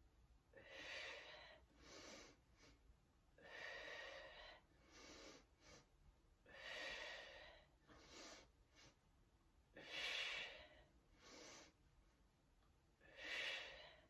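A woman breathing in time with the leg kicks, in through the nose and out through the mouth. There are about five louder breaths roughly three seconds apart, each paired with a shorter, softer one, all faint.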